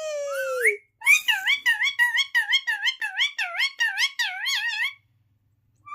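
Pet parrot calling: a drawn-out call, then a fast run of about eleven high, warbling whistled notes, then a short chirp near the end.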